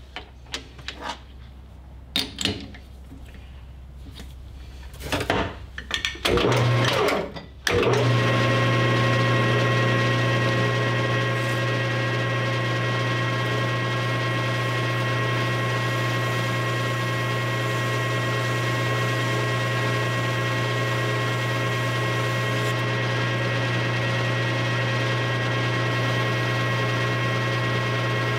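Metal clicks and knocks as a piston wrist pin is turned around and tightened in a metal lathe's chuck, then about eight seconds in the lathe starts and runs with a steady hum while the pin spins to be polished with emery cloth.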